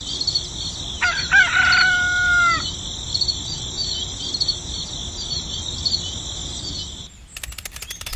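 A rooster crowing once, about a second in: one long held call that drops off at the end. It sits over a steady high chirping background. Near the end the chirping stops and a quick run of clicks follows.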